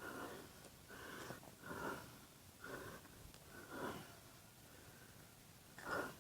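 A man's breathing and sniffing close to a head-mounted microphone: about six short, faint breaths roughly a second apart, the last one the loudest.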